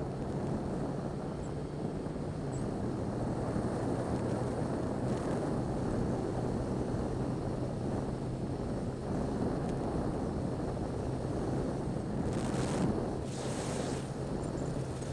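Wind rushing over a helmet-mounted microphone and road noise from riding a Yamaha XJ6 Diversion on a wet road, with the bike's 600 cc inline-four engine a steady low hum underneath. Brief bursts of louder hiss come in near the end.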